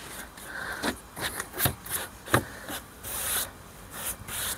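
Brush scrubbing along the bare metal pinch weld of a car's windscreen frame in irregular rubbing strokes, clearing dirt after the old glue has been cut back. A few sharp knocks come in between, the loudest about two and a half seconds in.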